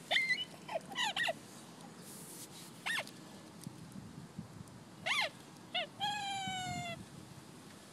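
A dog whining: several short high whimpers that rise and fall, then one longer held whine, slightly falling, about six seconds in. Faint rustling of dry leaves underneath as the dogs dig.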